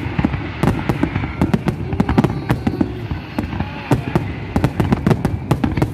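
Aerial fireworks going off in a dense, rapid string of bangs and crackles, many shells bursting in quick succession.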